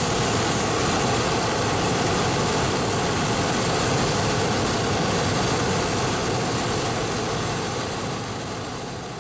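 Hot air balloon's propane burner firing: a loud, steady rushing blast of flame that fades away over the last couple of seconds.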